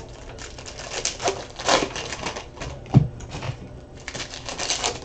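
Crinkling and rustling of a trading-card pack's wrapper as it is handled and opened, with a single dull thump about three seconds in.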